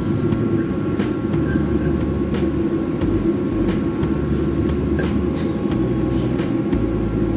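A steady low mechanical rumble with a few faint whining tones runs throughout. Several light metallic clicks come from the spoke dart's barb being hooked and worked against the braided cord loop.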